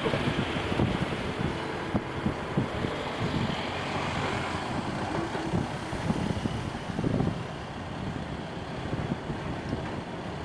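Wind buffeting the microphone over a steady rushing noise, with irregular low gusts and a slight swell a few seconds in.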